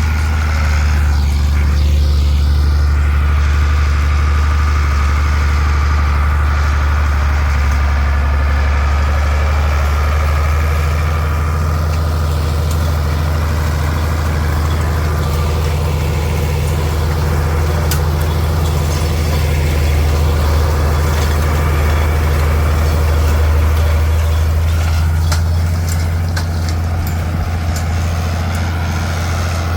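Farm tractor engine running steadily at a loud, even low drone while working a hay tedder.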